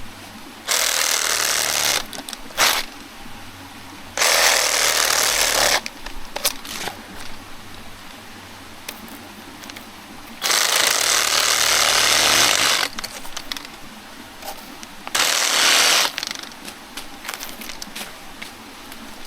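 Reciprocating saw with a 12-inch pruning blade cutting into a banana pseudo-stem in short runs, four bursts of about one to two seconds each with a brief blip after the first, and quiet pauses between.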